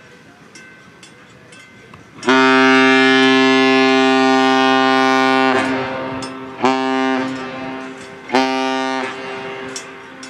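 Ship's horn on the tug Dorothy Ann sounding one long blast of about three seconds, then two short blasts, each dying away in echo. The pattern is the one-long, two-short salute used by Great Lakes vessels.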